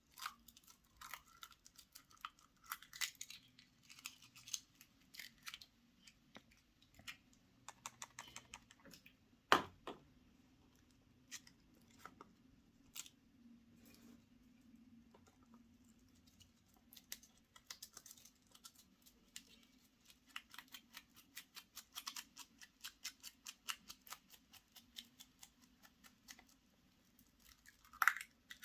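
Chocolate-egg foil wrappers crinkling and plastic clicking as the eggs are unwrapped and opened, in irregular runs of sharp crackles. There is one louder click about ten seconds in and a faint steady low hum underneath.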